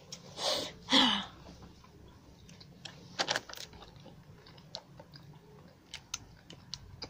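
Two short bursts of voice in the first second or so, then light crinkling and small clicks of a plastic Sour Patch Kids packet being handled as sweets are picked out of it.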